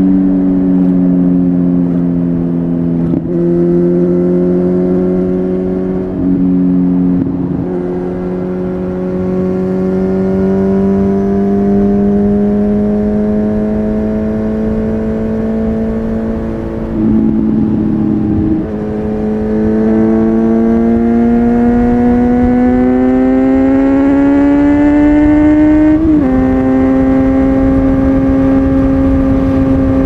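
A Kawasaki Z900's 948 cc inline-four running through an Akrapovic carbon full-system exhaust under way. The engine note climbs steadily as it pulls and steps down at a gear change near the end, with a few brief dips in loudness earlier on.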